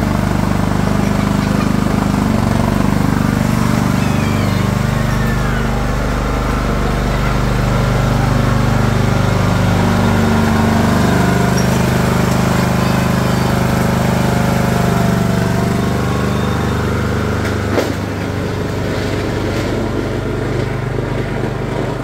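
2006 Craftsman YS4500 lawn tractor's engine running steadily under load as it pushes a plow blade through snow, close at first and growing somewhat quieter in the last few seconds as it drives away. A single sharp knock sounds late on.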